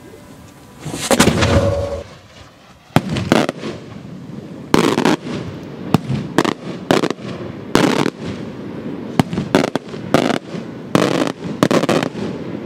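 Maltese beraq firework shells exploding in a rapid, irregular series of loud sharp bangs, about a dozen in nine seconds, after a rushing burst about a second in.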